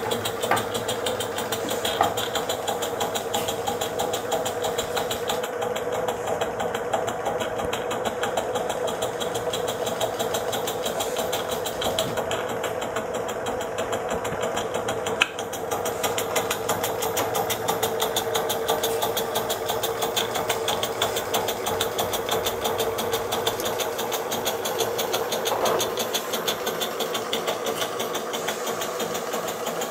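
Cast bronze Pevensey model steam engine running steadily under steam: a fast, even beat over a steady hum, with a single sharp click about halfway through.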